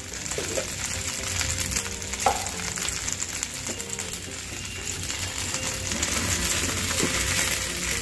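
Ghee sizzling steadily in a nonstick pan with cumin, curry leaves and ginger-chilli paste as a mixture of soaked sabudana, boiled suran and coarse peanut powder is tipped in and stirred. A few light knocks sound against the pan, the loudest about two seconds in.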